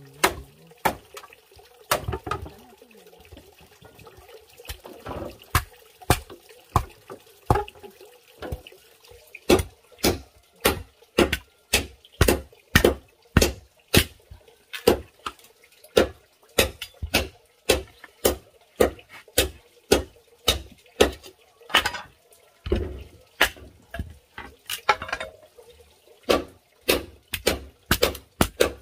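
Machete striking a green bamboo culm: repeated sharp knocks. They come sparsely at first, then settle into a steady rhythm of about two a second from about a third of the way in.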